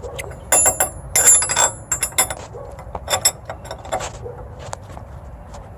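Steel wrench clinking and scraping on the nut of a threaded bushing-press tool as it is turned in short strokes, five or so bursts of sharp metallic clinks with a high ring, most of them in the first four seconds. The press is drawing a rubber trailing arm bushing into its bore.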